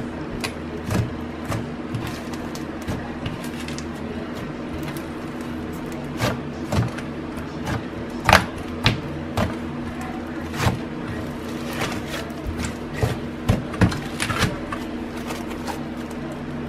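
Hands kneading and squishing a lump of clay slime, giving irregular sticky clicks and pops as it is pressed and pulled, with a steady low hum underneath.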